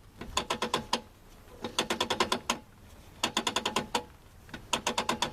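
Aussie Locker in a Dana 35 rear axle ratcheting during a spin test, with one wheel held backwards while the other is turned forward. It gives four runs of rapid clicking, about ten clicks a second, with short pauses between the runs. This ratcheting is the locker letting the wheels turn in opposite directions, the sign that it is installed and working.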